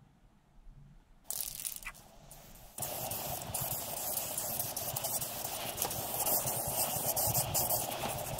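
Aerosol spray paint can spraying: a short burst a little over a second in, then a continuous hiss of spray from about three seconds in.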